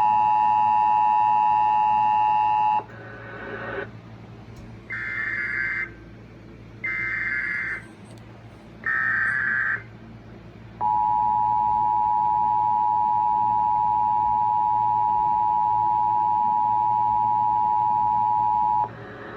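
Emergency Alert System tones from a Sage EAS ENDEC. A steady two-tone attention signal cuts off about three seconds in. It is followed by three one-second bursts of SAME digital header data, a warbling data tone sent three times, and then a steady attention tone held for about eight seconds.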